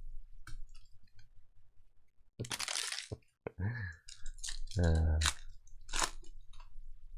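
Crinkling and tearing of foil trading-card pack wrappers as packs are opened, in a few short noisy bursts with scattered clicks, mixed with brief murmurs from a voice.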